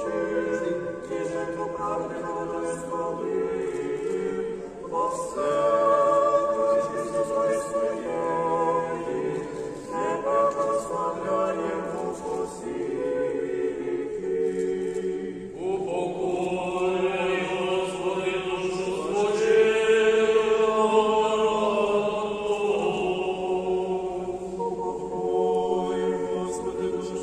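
Church choir singing unaccompanied memorial-service chant in several parts, in long held phrases with short breaks between them. Higher voices come in bright and strong with a new phrase about halfway through.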